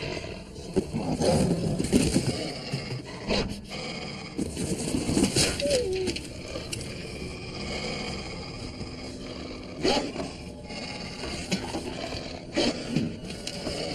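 A wolf growling and snarling in repeated outbursts, with scraping and knocking as things are shoved about.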